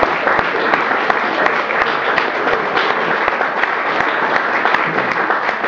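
An audience applauding: a dense, steady clatter of many hands clapping.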